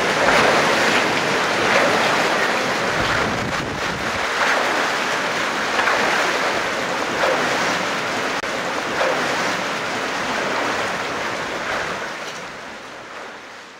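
Paddle wheels of the steam riverboat Orion churning water, a steady splashing rush that swells about every second and a half, fading out near the end.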